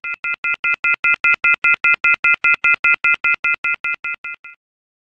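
A fast series of electronic beeps, about five a second, each a chord of a few steady high tones. The beeps swell, then fade away, and stop about four and a half seconds in.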